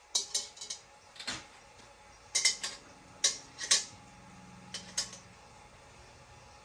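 Kitchenware being handled: an irregular series of sharp clinks and taps of cutlery against dishes, the loudest a little past halfway.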